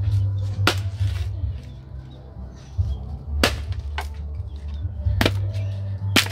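Axe blade striking a log to split firewood: five sharp chops at uneven gaps of about half a second to nearly three seconds.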